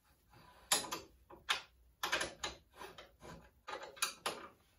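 Front shock absorber and its bolt being worked by hand into a tight mount on a steel tube-frame chassis: a string of irregular metallic knocks and clinks.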